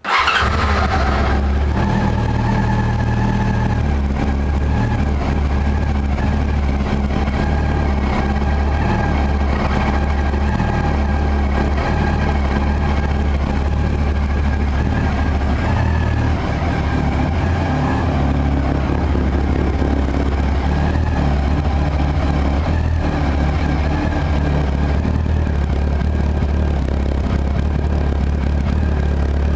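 1999 Yamaha R6's 600 cc inline-four running steadily at idle through an aftermarket BOS exhaust silencer. It comes in suddenly and holds an even pitch with no revving.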